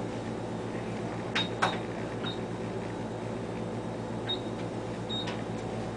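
Ultrasound machine console being operated: a couple of sharp key clicks about one and a half seconds in and four short high beeps spread through, over a steady low hum.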